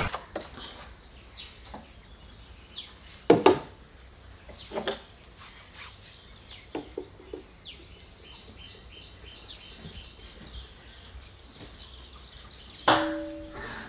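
A feather duster brushes over a wooden valve radio cabinet, with several knocks against the wood. Small birds chirp over and over in the background. Near the end there is a louder knock followed by a brief low ring.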